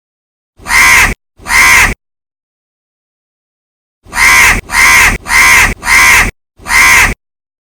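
Crow cawing: two harsh caws, a pause of about two seconds, then a run of five caws in quick succession.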